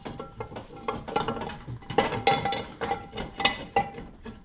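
Steel countershaft and gears of a Mustang T5 transmission clinking and knocking against the gear case as the countershaft is wiggled out, many sharp metallic clinks with short ringing.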